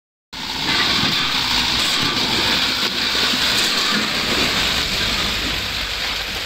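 Mitsubishi light truck driving slowly past through a muddy, rutted road: engine running under a loud, even rushing noise.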